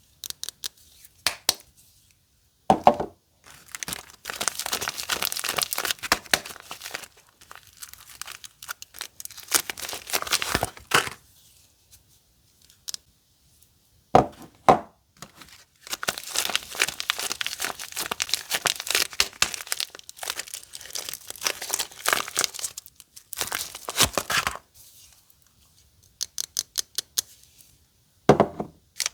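Soap wrappers being crinkled and torn open by hand, in stretches of dense crackling with short pauses between them. A few sharper knocks come through about three seconds in, halfway through and near the end.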